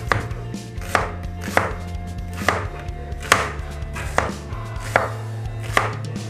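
Chef's knife slicing a white onion on a white plastic cutting board: about eight sharp knocks of the blade hitting the board, a little more than one a second.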